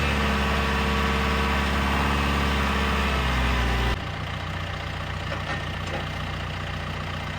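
Diesel engine of a John Deere 310 backhoe running steadily. About four seconds in it turns suddenly quieter and lower.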